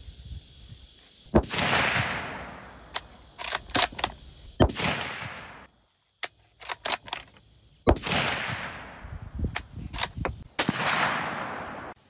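Rifle shots from a 350 Legend Ruger American Ranch bolt-action rifle with a 16-inch barrel: several sharp cracks a few seconds apart, each followed by a long rolling echo that fades over about two seconds. Short clicks fall between the shots.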